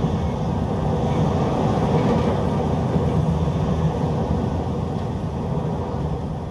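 Strong storm wind blowing in low, gusting waves, swelling a little a couple of seconds in and easing off near the end.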